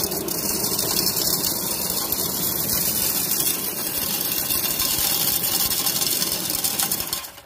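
Axial SMT10 Grave Digger RC monster truck pulling a sled weighted to 17 pounds over gravel: tires spinning and throwing gravel while the sled's skid scrapes along. It makes a loud, steady gritty hiss that cuts off suddenly near the end.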